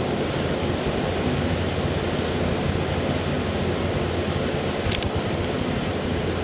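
Steady road and engine noise inside a moving car, a constant low rumble with hiss over it, with a brief click about five seconds in.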